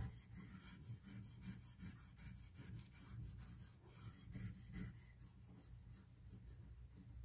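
Stainless-steel kitchen tongs rubbing and pressing bleach-soaked cotton strips against a countertop's back seam, a quick run of faint scraping strokes, several a second.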